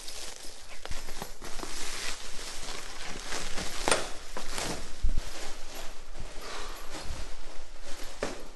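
Plastic stretch wrap being torn off a shipping box and bunched up: continuous crinkling and rustling with sharp little rips, and a dull thump about five seconds in.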